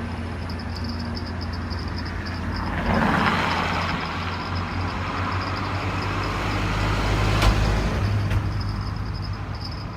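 A motor vehicle passing: a low engine hum that swells from about three seconds in, stays up for several seconds and fades near the end, with a sharp click twice in the later part. Insects trill steadily in a pulsing, high-pitched band throughout.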